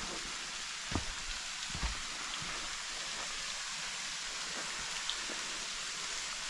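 Steady hiss of rain falling, with a few louder drops or taps landing close by about a second in, near two seconds and around five seconds.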